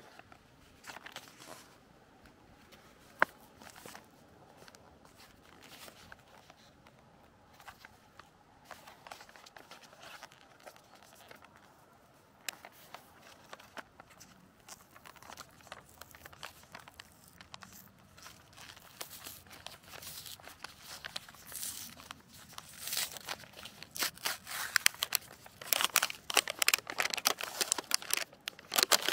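Plastic food packaging crinkling and tearing as it is handled and opened. It is sparse at first, with one sharp click early on, and grows busier and louder over the last ten seconds.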